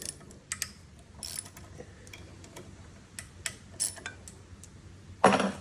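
Ratchet wrench clicking in short, irregular runs as the ignition coil bolts are loosened, with one louder metallic clatter about five seconds in.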